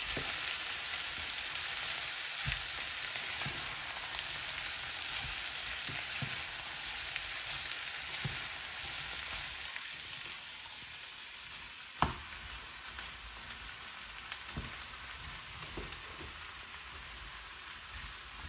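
Chopped vegetables and meat sizzling in oil in a frying pan as they are stir-fried, the sizzle slowly growing quieter. A spatula knocks and scrapes against the pan now and then, with one sharper knock about twelve seconds in.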